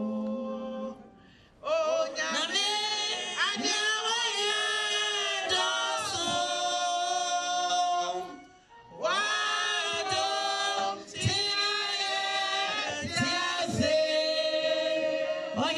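Men and women singing together as a group, their voices breaking off briefly about a second in and again about eight and a half seconds in.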